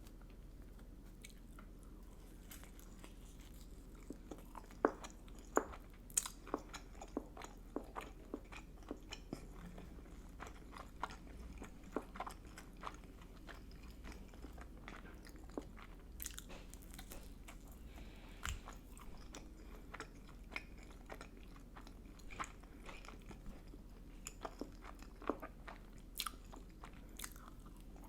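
Close-miked chewing and biting of food, with many sharp, irregular mouth clicks and smacks from about four seconds in, over a faint steady low hum.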